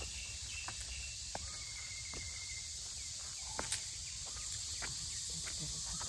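Steady high-pitched chorus of crickets and other insects, with scattered light clicks and footsteps as someone walks along a stone path.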